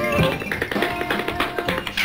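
Background music with a quick tapping rhythm and plucked-string notes.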